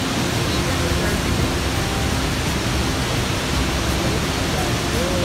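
Niagara's Horseshoe Falls: a huge volume of water pouring over the brink, heard as a steady, loud, unbroken rushing roar of falling water and spray.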